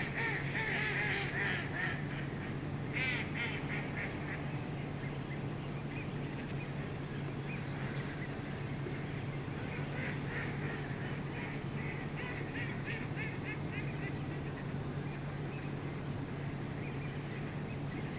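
Waterfowl calling in flocks: bursts of rapid repeated calls near the start, again about three seconds in, and from about ten to fourteen seconds, over a steady low hum.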